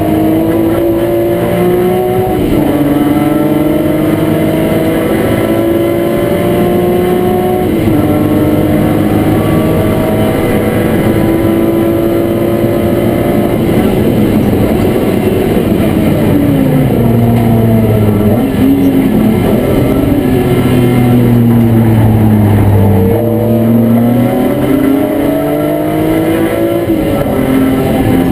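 BMW E36 M3 race car's straight-six engine heard from inside the stripped, roll-caged cabin, pulling hard with rising revs and two upshifts in the first eight seconds. The revs then hold, fall away for several seconds, and climb again with another upshift near the end.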